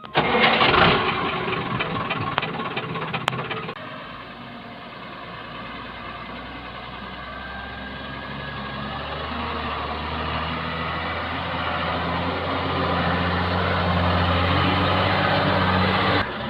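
Heavy diesel engine of earthmoving machinery running, with a loud clattering burst over the first few seconds. The engine note then builds steadily louder and stops abruptly near the end.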